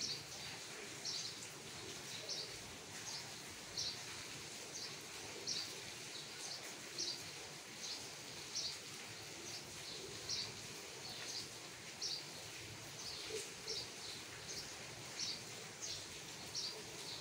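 A bird repeating a short, high chirp about once every second, over faint outdoor background noise.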